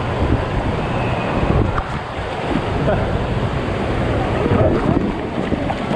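Steady rushing of running water at the top of an indoor tube water slide, with the echoing din of the water park and faint distant voices.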